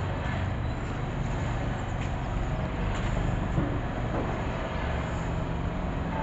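Steady outdoor background noise: a low rumble of distant road traffic, with no single sound standing out.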